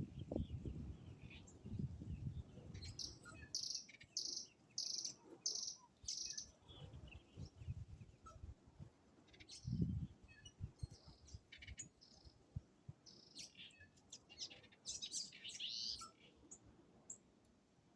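Birds chirping and calling: a run of about five short, high, evenly spaced chirps, then more scattered calls and a busier cluster of chirps later. Low rumbling noise near the start and a loud low thump about ten seconds in.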